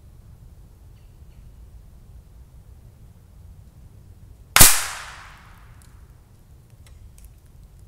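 A .22 LR bullet hitting a hanging steel free-weight plate target: one sharp, loud crack about halfway through, with a tail that dies away over about a second.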